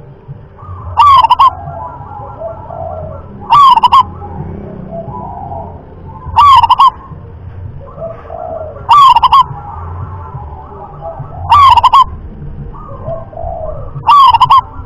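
Zebra dove (perkutut) singing its cooing song: a short phrase of rapid coos repeated six times, about every two and a half seconds. The calls are loud enough to distort.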